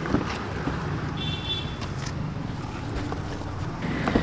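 Steady city street traffic noise, with a brief high-pitched tone about a second in and a click near the end as a hand pulls a car's exterior door handle.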